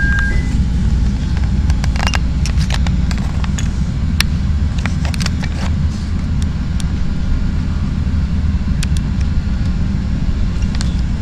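CTA 5000-series rapid transit car running between stations, heard from inside the car: a steady low rumble with a cluster of sharp clicks and rattles from about two to seven seconds in and a few more near nine seconds.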